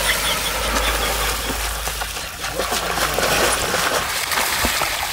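Pond water splashing and churning as someone thrashes about in it: a steady wash of noise with a few sharper splashes near the end.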